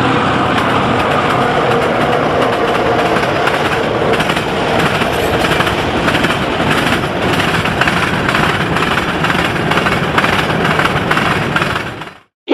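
Freight train rolling past, hauled by diesel locomotives: a steady engine rumble with the rapid, rattling clatter of wagons on the rails. It fades out near the end.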